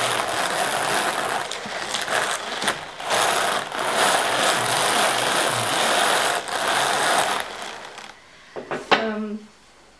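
Hand-cranked Tom Walther 'Rudy' drum carder (72 ppi card cloth) running while carding baby camel hair, a steady mechanical rattle with clicks from the crank and drums. The cranking slows and stops about eight seconds in, followed by a couple of knocks.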